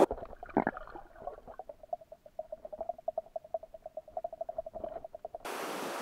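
Carp rod's bite alarm sounding a fast run of short beeps on one steady pitch, about seven a second, as a fish takes the bait and runs with the line. A single knock comes about half a second in, and the beeping cuts off near the end.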